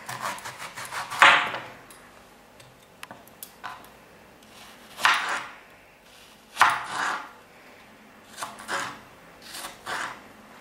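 Kitchen knife cutting an apple into small pieces on a wooden cutting board: a quick run of small cuts at the start, then single cuts and taps on the board every second or two.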